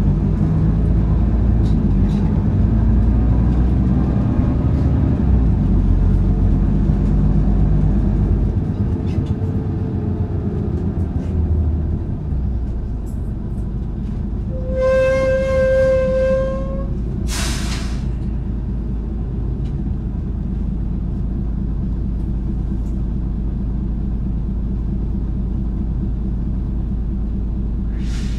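Running sound of a Hino Blue Ribbon KC-HU2PMCE diesel city bus: a steady engine drone whose pitch falls during the first several seconds. About fifteen seconds in, a steady tone sounds for about two seconds, followed at once by a short sharp hiss of air, with another brief air hiss near the end.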